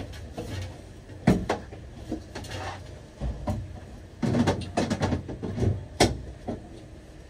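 Rummaging in an under-counter storage cupboard: a scattered series of knocks and clatters as items are moved about, with a busier spell of handling about four to five seconds in.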